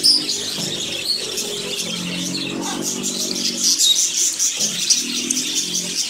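A flock of budgerigars chattering, with a dense run of quick chirps and warbles throughout.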